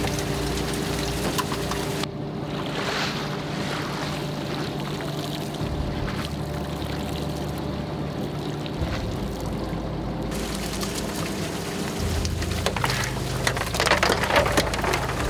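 A fishing boat's engine and deck line hauler run with a steady hum as the fishing line is hauled in. Near the end there is a spell of splashing and dripping water as a large octopus is shaken out of its net onto the deck.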